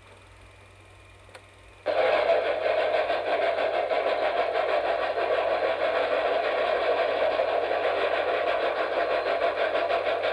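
A machine starts up suddenly about two seconds in and runs on steadily with a fast, even clatter.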